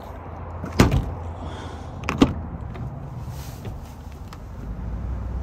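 Two sharp slams about a second and a half apart as a pickup truck is shut up to leave, its doors being closed.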